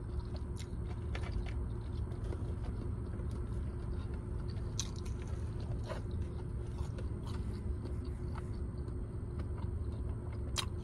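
A person chewing and biting food, with faint scattered clicks and crunches, over the steady low hum of a car's cabin.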